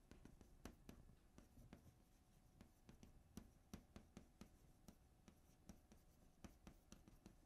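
Near silence: quiet room tone with faint, irregular ticks and scratches of pens writing on paper.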